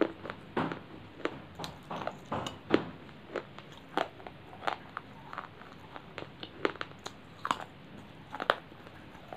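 Crunchy baked clay chips being bitten and chewed close to the microphone: a string of sharp, irregular crunches about every half second, the loudest nearly three seconds in.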